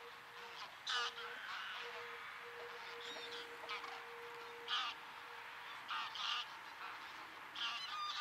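A flock of wild geese honking: scattered calls from many birds, loudest about a second in and again near the end.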